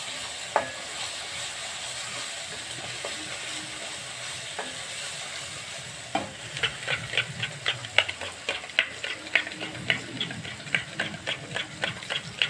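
Spice masala sizzling in oil in a steel kadai. From about halfway, a metal spoon beats yogurt in a steel bowl, clicking rapidly about four times a second over the sizzle.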